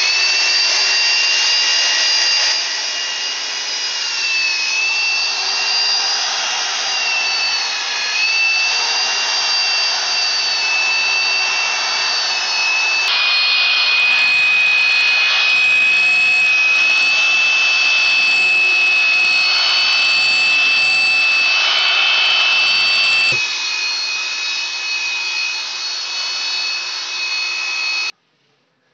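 Handheld electric drill with a paddle mixer running steadily, churning cement-based tile adhesive in a plastic bucket. The motor gives a loud high whine that dips slightly in pitch now and then as the paddle loads up, and it cuts off suddenly near the end.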